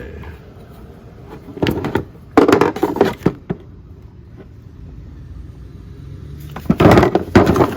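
Handling clatter and scraping as a side handle is fitted to a Metabo HPT angle grinder's gear housing and the thread goes in tight: a few sharp rattling bursts, one near two seconds in, a longer one just after, and another near the end.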